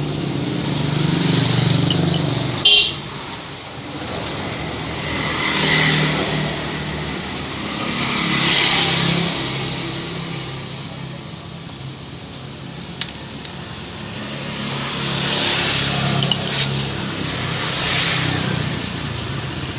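Motor vehicles passing one after another, each swelling and fading over a few seconds, with a sharp click about three seconds in.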